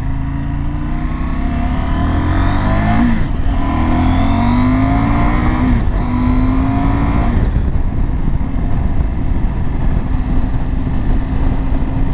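KTM LC8c 799cc parallel-twin engine of a 2019 KTM 790 Adventure accelerating hard out of a corner. It revs up through three gears, with upshifts about three and six seconds in, then settles to a steady cruise.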